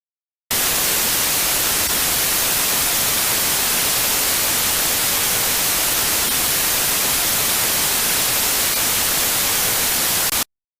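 Loud, steady static hiss like white noise, switching on abruptly about half a second in and cutting off just as abruptly about ten seconds later.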